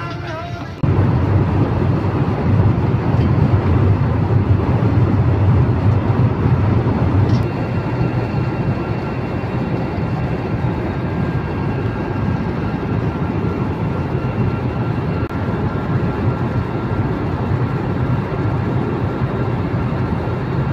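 Airliner cabin noise: the jet engines running at high power under a steady rush of air, heaviest in the low end, as the plane takes off and climbs. It starts suddenly about a second in and eases slightly about seven seconds in, when faint steady whines come in.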